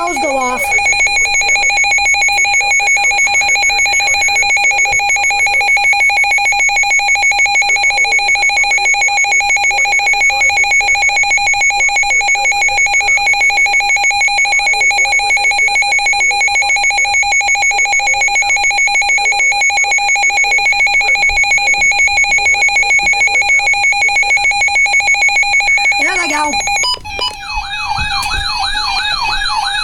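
Emergency Alert System attention signal: a loud, steady electronic alert tone held for about 26 seconds. Near the end it gives way to a warbling, siren-like tone that sweeps up and down. It precedes a broadcast flash flood warning.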